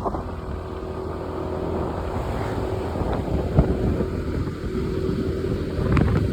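Motor scooter running on the road with wind buffeting the microphone: a steady low rumble with a faint engine tone.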